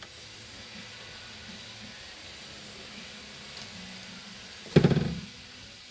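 A single sharp knock about five seconds in, a small hammer striking while setting rivets through poly and steel, over a steady background hiss.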